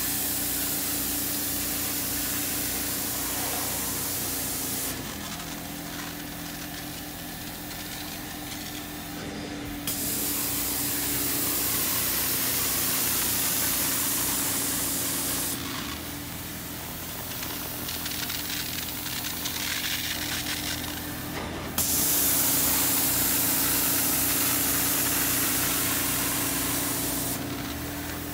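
Janilink carpet extractor working a carpet: the machine's motor hums steadily throughout. Over it the wand sprays three times with a loud hiss, each spray about five seconds long and starting suddenly, with quieter suction-only passes in between.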